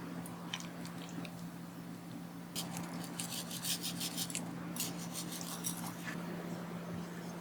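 Quick, light clicking and clinking of kitchenware in two short runs a few seconds in, over a steady low hum.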